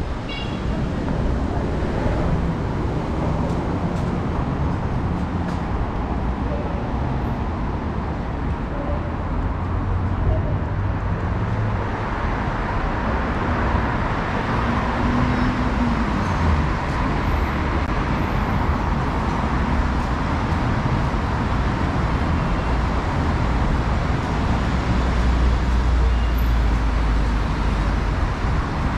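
Road traffic passing steadily: a continuous rumble of car and bus engines with tyre hiss, growing louder in the second half.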